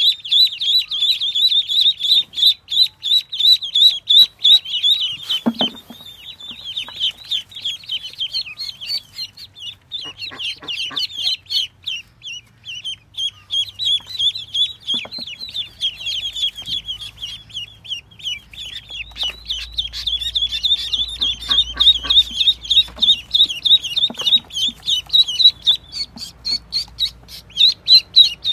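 A group of newly hatched ducklings peeping: fast, high-pitched calls, many overlapping and almost without a break. A single thump sounds about five and a half seconds in.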